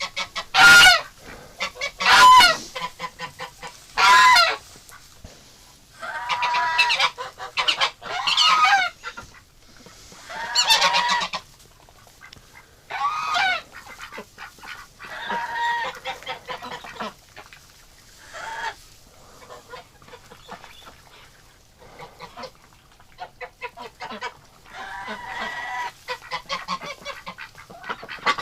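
Domestic geese honking over and over, with the loudest honks in the first few seconds and quieter calls from the flock in between.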